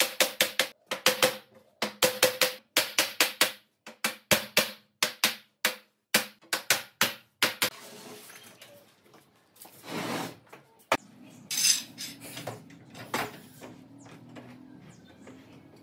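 Hammer striking repeatedly in quick runs of about three to four blows a second. The blows stop about halfway through, giving way to quieter knocks and a couple of brief scraping sounds.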